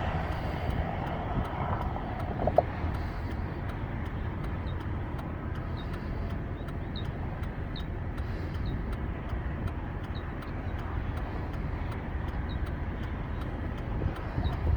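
Steady road and engine noise inside the cab of a Ford F-150 pickup while driving, with a faint regular ticking about two or three times a second.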